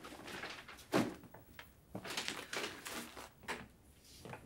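Scattered soft knocks and rustles of someone moving about a kitchen, irregular rather than a steady rhythm, with one louder knock about a second in.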